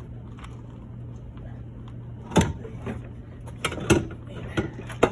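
Car exhaust pipe knocking and clanking as it is worked onto its hangers under the car: about five sharp metal knocks starting about two seconds in, over a steady low hum.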